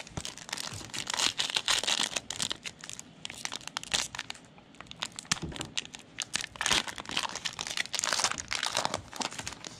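Trading card pack wrappers being crinkled and torn open, with dense crackling and sharp clicks of cards being handled, coming in several louder spells.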